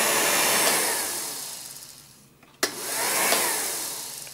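1949 Revere P-90 8mm projector's motor and cooling blower whirring, then coasting down with a falling pitch from about a second in. About two and a half seconds in a sharp click starts it again: it whirs up and winds down once more.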